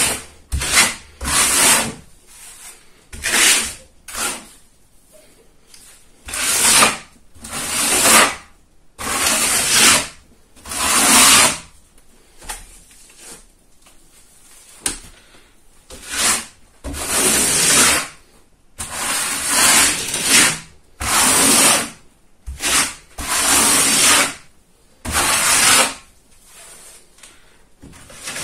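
Steel plastering trowel scraping gypsum plaster (Teplon) across a drywall wall in repeated strokes, each about half a second to a second long, with short pauses between.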